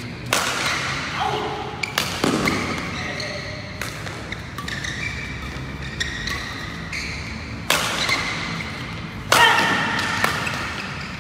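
Badminton rally in a large hall: a string of sharp racket-on-shuttlecock hits, about one every second or two, each ringing briefly in the room. Shouted voices come in near the end.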